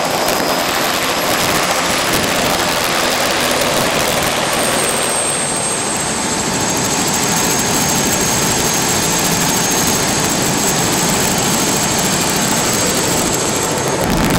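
Helicopter turbine engine and rotor running on the ground before takeoff: a steady, loud rush of noise with a thin high whine over it.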